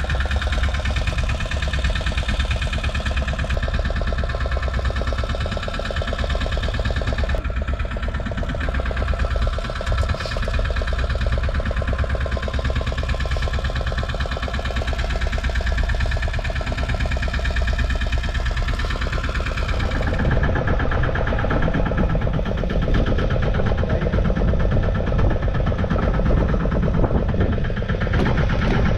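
Small fishing boat's outboard motor running steadily at low speed. The sound turns duller about two-thirds of the way through.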